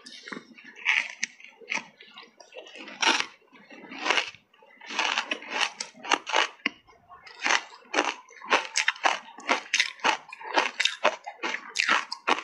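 Ice coated in matcha tea powder being bitten and chewed, a dense run of sharp, irregular crunches.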